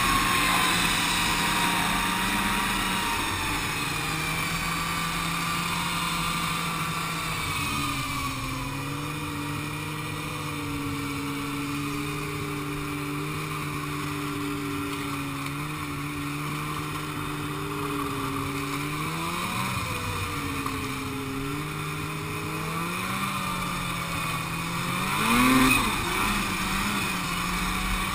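Snowmobile engine running under way. Its pitch falls over the first few seconds as it slows, then holds fairly steady with a few throttle changes later on, and a brief louder rev comes a few seconds before the end.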